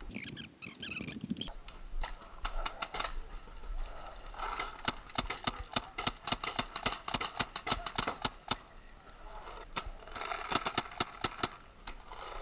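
Paintball markers firing rapid strings of shots, several sharp pops a second, in bursts with short pauses between. A brief burst of noise comes at the very start.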